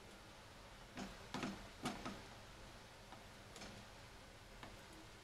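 Silicone spatula knocking and scraping against a non-stick frying pan as thick mawa is stirred. The mawa has cooked down far enough to leave the pan. There is a cluster of louder knocks about one to two seconds in, then a few fainter ones.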